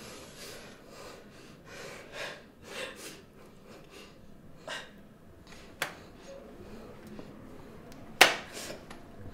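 A person's heavy breathing, soft breaths coming about every half second. A faint click sounds a little before the middle, and a single sharp knock stands out near the end.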